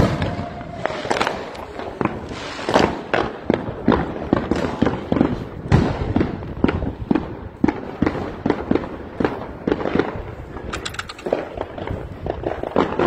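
Many fireworks and firecrackers going off at once: sharp bangs and crackles, several a second, without a break.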